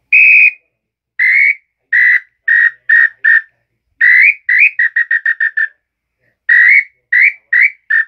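Handmade catingueira-wood bird call (pio) blown to imitate a tinamou's whistle: a series of clear whistled notes with a slight upward slur, first long single notes, then a quick run of about six short notes in the middle, then single notes again.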